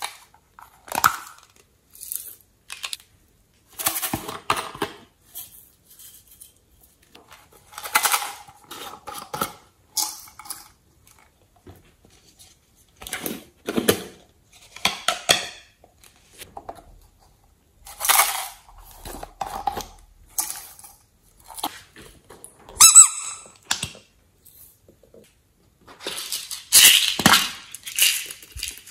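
Small plastic containers and lids clicking and scraping as they are opened, and glitter and sequins shaken out of them onto slime in a plastic tray. The sounds come in separate bursts a second or two long, with a brief squeak about two-thirds through and the loudest shaking near the end.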